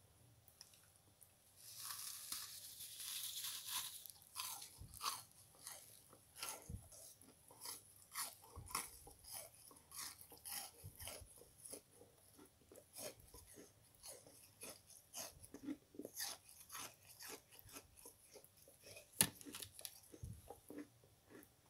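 Crunching and crackling of a dry, crystal-crusted foam sponge being squeezed and crumpled by hand. A dense crackle comes about two seconds in, then a string of separate crunches with one sharper snap near the end.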